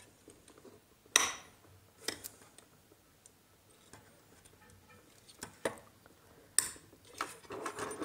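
A few sharp plastic clicks and taps as the bare wire ends of a test lamp are pushed into the 16 A socket and the lamp holder is handled. The loudest click comes just after a second in and another near seven seconds, with softer taps between.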